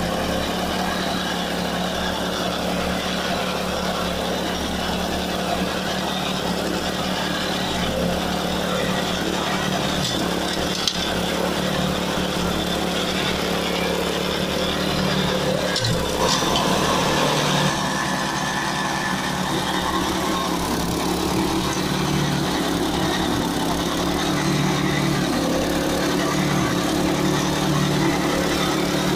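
Jansen HSM-60 flail mower's 8 HP Loncin single-cylinder petrol engine running steadily under load while the mower cuts tall grass, briefly a little louder about halfway through.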